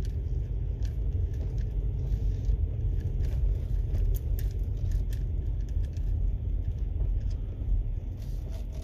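Steady low rumble of a vehicle in motion, with a few faint clicks over it.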